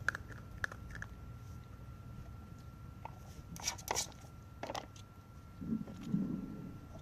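Sheltie puppy working a plastic Nina Ottosson tornado treat puzzle and chewing treats. Scattered clicks and scrapes of plastic come in a cluster a little past halfway, then soft low thuds near the end.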